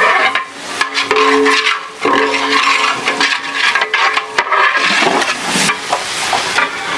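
Biryani masala sizzling in a large aluminium pot as a long metal ladle stirs and scrapes through it, with scattered knocks of the ladle against the pot. A low steady tone sounds for a couple of seconds about a second in.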